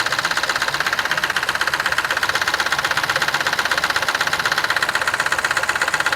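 Mahindra TUV300's three-cylinder diesel engine idling with a fast, even ticking clatter. It is a mechanical knock from the upper, cam side of the engine, which the mechanic confirms is not coming from the injector.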